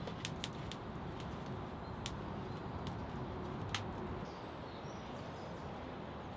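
Wood fire crackling, with a few sharp pops, as split logs are laid on it. After about four seconds the pops stop and a steady outdoor background with a few faint bird chirps takes over.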